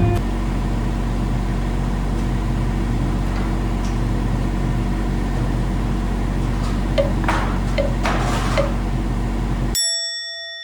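Backhoe's diesel engine running steadily at idle, with a few short hisses near the end. The engine sound cuts off abruptly and a bright chime rings out and fades.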